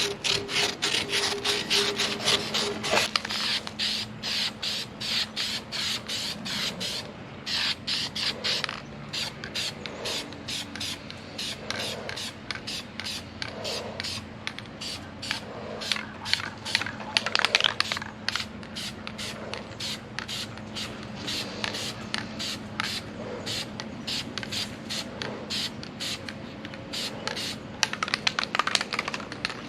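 Rapid repeated scraping or rasping strokes, a couple of strokes a second, over a faint steady hum.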